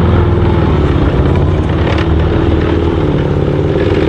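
Steady, loud engine-like rumble with a low drone whose pitch steps up and down a few times.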